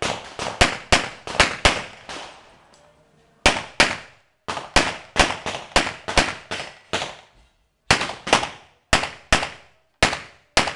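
Handgun fired in rapid strings of about two dozen sharp shots, many in quick pairs. There is a pause of over a second after the first string and shorter breaks between the later ones.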